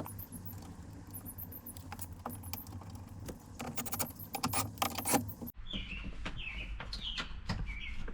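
Metallic clinks and rattles of a replacement speaker and its mounting parts being handled and fitted into a car door, stopping abruptly about five and a half seconds in; short faint high chirps follow.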